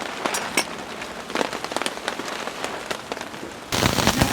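Rain falling, with separate drops ticking close by over a steady patter. Near the end it abruptly becomes a much louder, heavier downpour.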